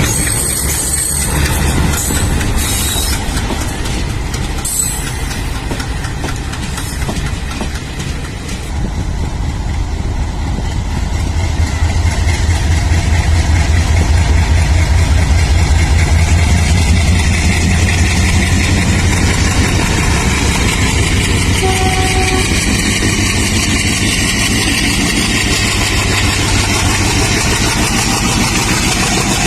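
Indian Railways diesel locomotive engines chugging: first a WDM3A, then after a short dip another diesel loco whose engine throbs louder and deeper from about 11 s on.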